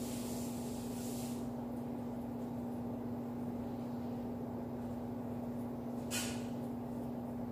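A steady low machine hum, with a short hiss about six seconds in.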